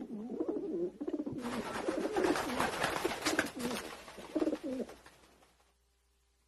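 Pigeons or doves cooing in a run of low, wavering calls, with a rushing hiss over the middle of it; the cooing fades out about five seconds in.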